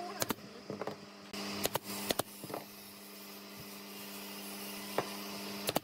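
Pneumatic brad nailer firing into pine slats: several sharp clacks at irregular intervals, over a steady low hum.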